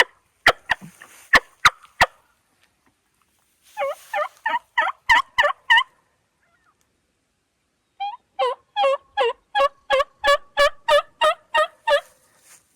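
A hunter's diaphragm mouth call imitating a hen turkey. First come a few quick, sharp clucks. Then come two runs of evenly spaced yelps: about eight yelps, then a longer run of about fourteen after a short pause. This is soft short-range calling to draw a tom.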